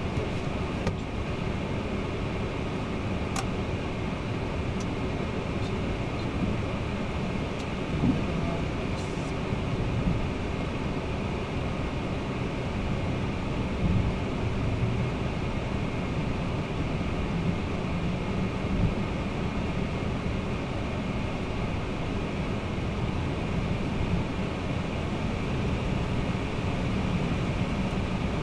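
Steady flight-deck noise of a Boeing 767-300ER taxiing with its engines near idle, together with the hum of the cabin air and fans. There are a few soft bumps from rolling over the runway surface, and the noise grows a little louder near the end as the jet lines up on the runway.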